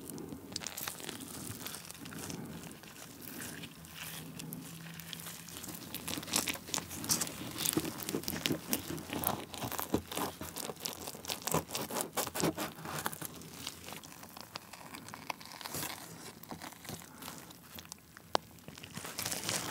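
Close-miked sticky crackling and squishing of honeycomb wax crushed in a disposable-gloved hand, then the honey worked over a cheese pizza and a slice pulled away; a dense run of small clicks throughout.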